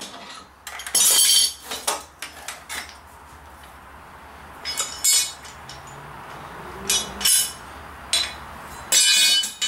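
Steel lawn mower blade and a wrench clanking and clinking as they are handled, a series of sharp metallic knocks with a brief ring. The loudest clatters come about a second in and near the end.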